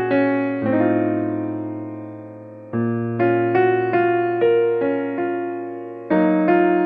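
Background piano music: chords that ring and slowly fade, with single notes picked out above them, and two fresh, louder chords struck partway through.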